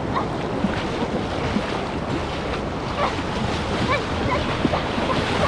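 Ocean surf washing steadily onto the shore, with wind noise on the microphone.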